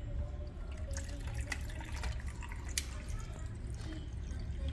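Lemonade pouring from a plastic pitcher into a cup of ice, a steady splashing trickle with a few sharp clinks.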